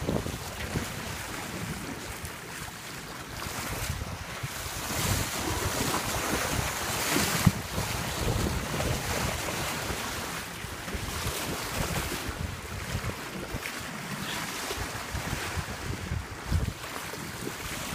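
Wind buffeting the microphone over sea water rushing and splashing along a sailboat's hull, with a louder splash about seven seconds in.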